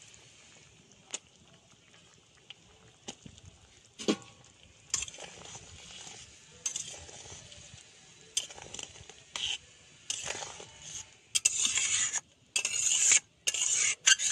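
A spatula stirring and scraping in an aluminium kadai of boiling curry with fried fish-roe fritters, the gravy bubbling. The scraping starts as scattered clicks and grows into loud, close-set strokes near the end.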